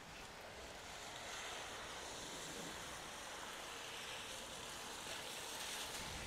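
Steady hiss of rain falling on wet pavement, soft and even, swelling slightly after the first second.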